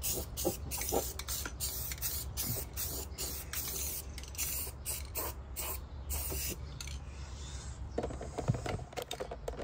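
Aerosol can of Rust-Oleum 2X spray paint hissing in many short spurts with brief gaps between them. The spraying stops about seven seconds in.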